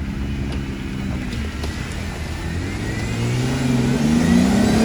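Off-road 4x4's engine running steadily under load, then revving up from about three seconds in as the driver gets on the throttle.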